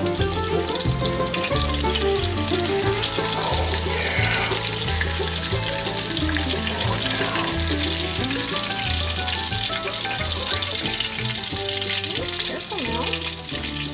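Battered fish fillets frying in hot oil in a cast-iron skillet: a steady, dense sizzle and crackle. Background music with a steady, repeating bass line plays along.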